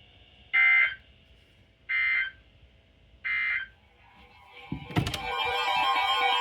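Emergency Alert System end-of-message data tones: three short, identical bursts of warbling digital data, about a second and a half apart, marking the end of the severe thunderstorm warning. About five seconds in there is a thump, and guitar music starts.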